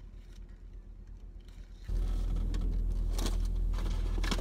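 Low steady rumble inside a car cabin that jumps suddenly louder about two seconds in. Over it, paper rustles and crinkles as a chicken sandwich wrapper is handled.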